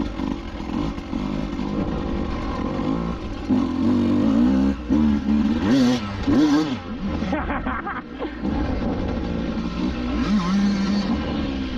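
Dirt bike engine running and being revved, its pitch rising and falling several times, with the hardest, most uneven revving in the middle.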